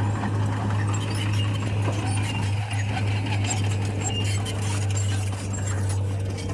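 Heavy construction machine's diesel engine running steadily under load, with scattered metallic clinking and clattering over it.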